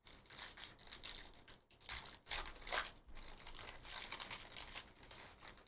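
Trading card pack wrappers crinkling and tearing as packs are ripped open and handled, a continuous run of crackly rustles with sharper rips throughout.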